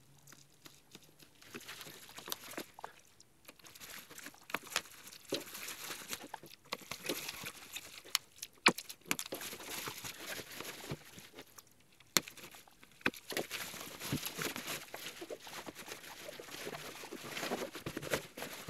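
Plastic bubble wrap crinkling and rustling as it is handled and pulled off a cardboard box, in irregular crackles with a few sharp snaps.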